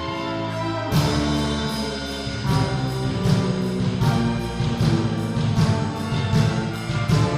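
Orchestral music: held chords, then about a second in a fuller, louder passage with a steady rhythmic beat.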